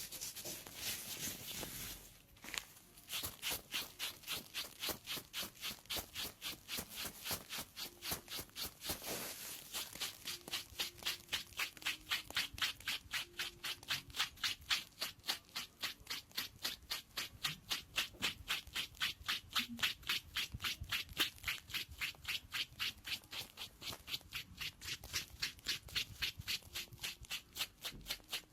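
A pedicure blade scraping the thickened skin of a foot with athlete's foot. The first two seconds are one continuous scrape, then come quick, even, repeated strokes, about three a second.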